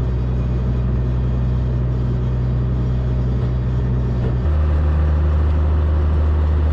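John Deere 7810 tractor's diesel engine running steadily; about four and a half seconds in, the engine speed steps up to a higher, slightly louder note and holds there.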